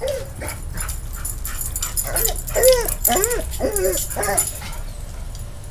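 A dog giving a quick run of short, high yipping whines, each call rising and falling in pitch, bunched together about two seconds in and stopping a little after four seconds, with faint clicking around them.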